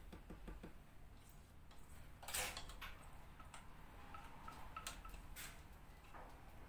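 A silicone whisk scraping and tapping against a stainless steel pot while thick pudding is emptied out of it into a glass dish: scattered light clinks and scrapes, the loudest about two seconds in.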